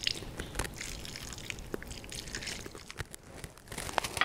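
Vinegar poured from a small glass measuring cup onto sliced cucumbers in a glass bowl, a faint trickle with small clicks. Near the end come a few light clicks as the glass cup is set down on the countertop.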